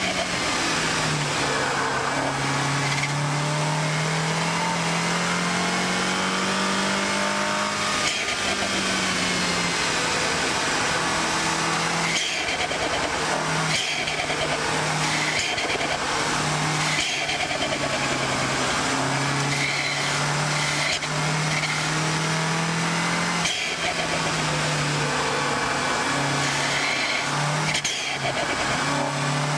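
2014 MINI Cooper S's turbocharged four-cylinder engine pulling hard at track speed. Its pitch climbs steadily, drops sharply about eight seconds in, then repeatedly dips and picks up again, over steady wind and road noise.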